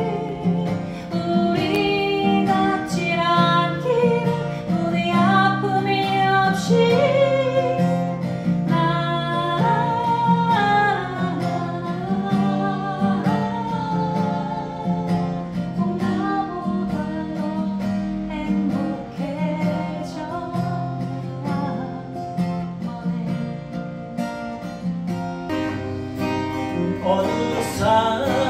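Live acoustic guitar strumming chords under a sung melody.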